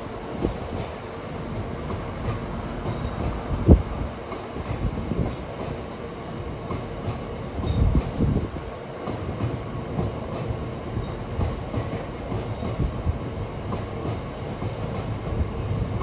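A long freight train of loaded open box wagons rolling past on a curve: wheels clattering over the rail joints, with heavier knocks about four and eight seconds in and a faint steady squeal throughout.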